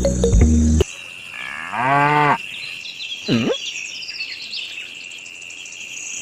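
Background music cuts off about a second in. A dubbed-in cow moo follows, one call of about a second that rises and falls, over a steady high chirring of crickets. A shorter call comes about three seconds in.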